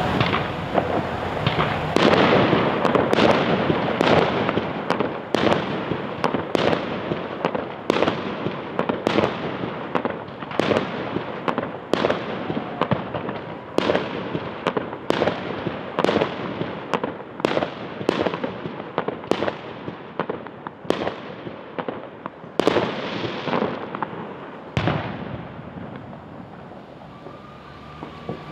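Fireworks display: a long string of sharp shell bursts, about one a second, each trailing off in a rolling echo, dense at first and thinning out until the last bangs about 25 seconds in.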